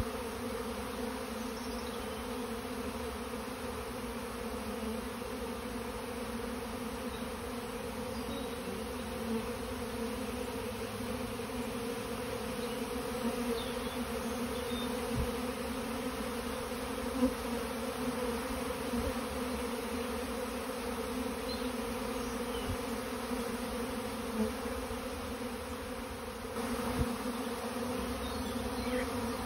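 A swarm of honeybees buzzing in a steady, dense hum as thousands fly around their cluster, with a few brief soft knocks.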